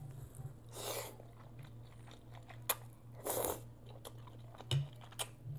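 Close-miked eating of birria ramen: chewing with a few sharp mouth clicks, and two longer noisy mouthfuls, one about a second in and one past the three-second mark. A low steady hum sits underneath.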